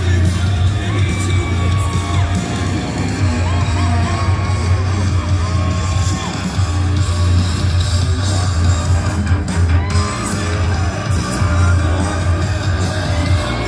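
Loud music with a singing voice and a strong low bass line, blasting from loudspeakers.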